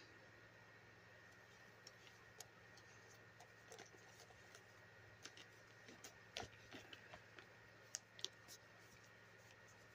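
Near silence with faint, irregular small clicks and taps of a doll and its clothes being handled, a couple of sharper clicks about eight seconds in, over a faint steady hum.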